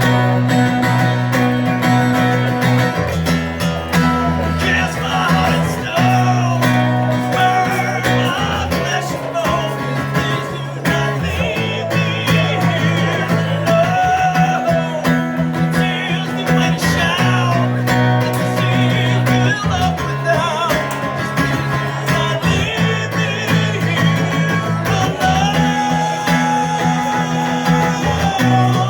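Instrumental break of a song: guitar playing over a steady bass line, with a lead melody that bends in pitch.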